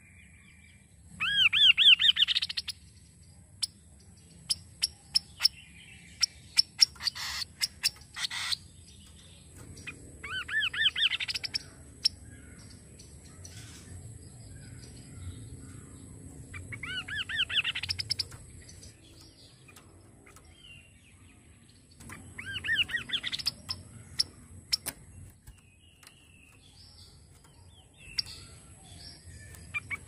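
Chestnut-capped babbler (kaso-kaso) singing a loud trilled phrase of rapidly repeated whistled notes, given five times about every six seconds. Between the first two phrases comes a run of sharp ticks.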